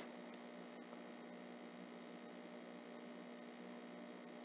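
Faint, steady electrical hum with a low hiss underneath: background room tone.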